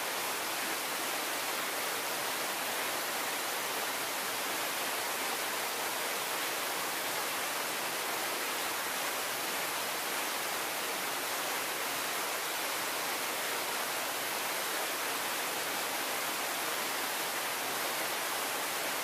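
Two thin waterfall streams falling over a rock bluff into a plunge pool, splashing steadily: an even, unbroken hiss that stays at one level throughout.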